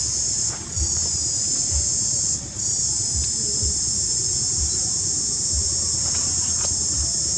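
Loud, steady high-pitched shrilling of an insect chorus, which drops out briefly twice in the first few seconds before carrying on.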